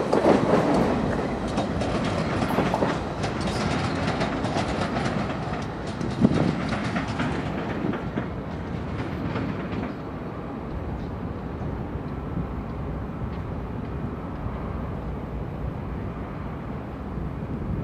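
Freight train led by a BNSF diesel locomotive passing close by, steel wheels clicking over rail joints above a heavy rumble. About halfway through the sound turns quieter and duller as train cars roll by further off.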